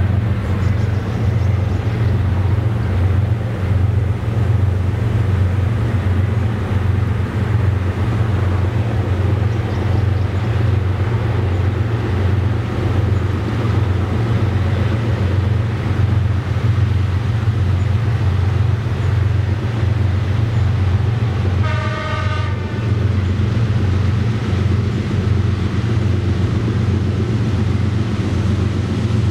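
EL class diesel-electric locomotives hauling a loaded rail train, their engines running with a steady low rumble. One short horn blast comes about three-quarters of the way through.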